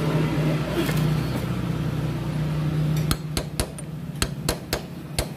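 A steady low hum, then, starting about three seconds in, about ten quick, light hammer taps on a steel socket held against the motorcycle engine's sprocket shaft. The taps are kept light so as not to crack the counter-bearing housing inside.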